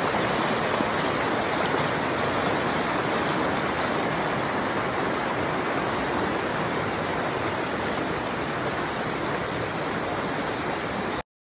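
Mountain creek rushing over rocks and through small rapids: a steady, full rush of water, easing slightly, that cuts off suddenly near the end.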